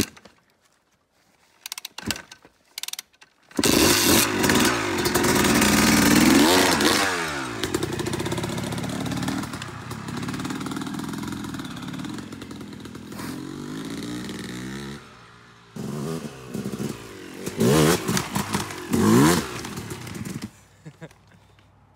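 Yamaha YZ250X two-stroke dirt bike engine: a few clicks and knocks, then the engine catches about three and a half seconds in and is revved up and down in rising and falling sweeps before running at a steadier pitch. Near the end it gives two more short, sharp revs and then fades.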